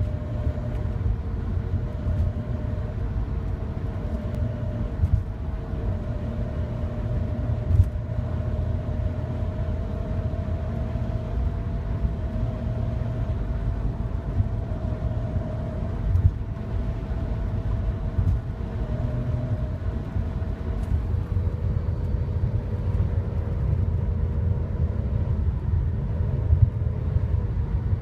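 A 2000 BMW E46 328i's straight-six running over a low rumble, with a steady thin whistle; about two-thirds of the way through, the whistle moves lower in pitch and wavers. The owner traces it to a fault that could be worn pulleys, the secondary air pump or its valve, or a vacuum leak around newly replaced intake boots.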